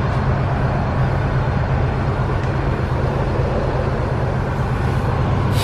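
Cummins 6.7-litre inline-six turbodiesel in a 2019 Ram 3500 idling with a steady, even low hum that the speaker calls quiet for a diesel.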